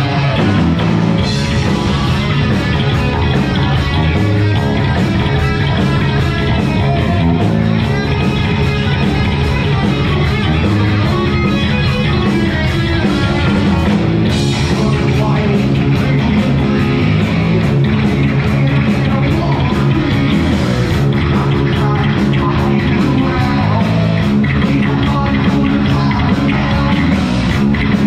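Heavy metal band playing live, with distorted electric guitar, bass and drums keeping a steady driving beat.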